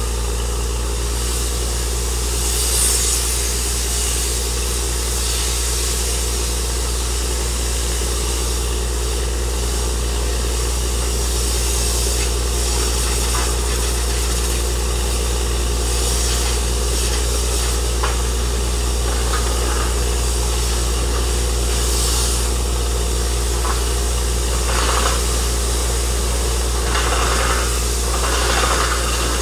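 Truck-mounted borewell drilling rig running while drilling: a steady low engine drone under a constant hiss, with a few brief louder rushes near the end.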